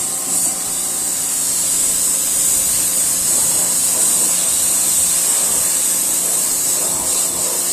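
Yard Force compact pressure washer running at its highest pressure setting, its motor humming steadily under the loud, constant hiss of the high-pressure water jet spraying onto the truck.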